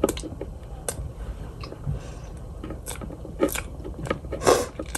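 A person chewing and biting a crunchy sugar cookie close to the microphone as ASMR, irregular crunchy clicks with a couple of louder crunches in the second half.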